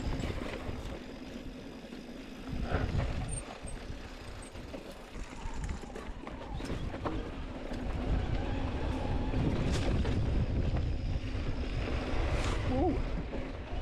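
Mountain bike riding down a rocky dirt singletrack, heard from a chest-mounted camera: tyres running over dirt and stones, with a scattering of sharp knocks and rattles from the bike over bumps. Wind rumbles on the microphone, heavier in the second half.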